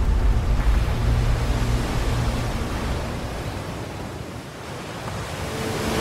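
Rushing ocean surf noise with a deep rumble. It fades to its quietest about four and a half seconds in, then swells again near the end.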